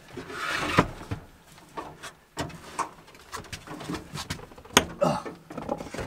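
A microwave oven being lifted into a van and set down on a wooden worktop: irregular knocks, bumps and scrapes of its casing. The loudest knocks come about a second in and just before five seconds.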